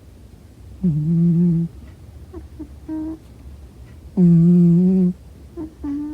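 An elderly cat snoring in its sleep: two long snores with a steady pitch, about three seconds apart, with shorter, softer snores between them in time with its breathing.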